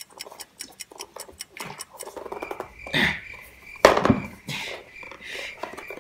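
Paperboard camera box being handled as its inner box is slid out of the sleeve: a run of light clicks and finger taps, then a couple of louder scrapes and thumps past the halfway point.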